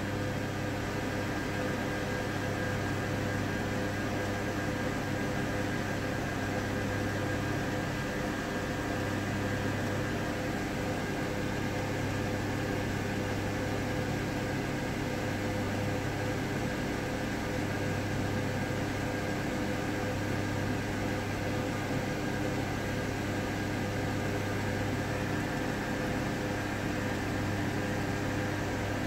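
Steady electrical hum with a hiss and a few constant tones, unchanging throughout.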